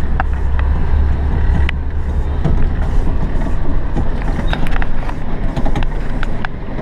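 Heavy diesel truck engine running with a steady low rumble, with scattered light clicks and knocks over it.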